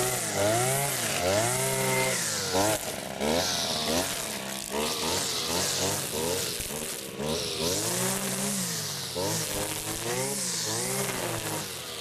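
Handheld two-stroke power tools, the kind used for cutting back trees and grass, revving up and down over and over. At times more than one machine runs at once.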